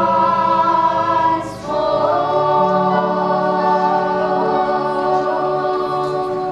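A man and a group of children singing together in harmony. A short phrase is followed by one long held final chord that fades near the end.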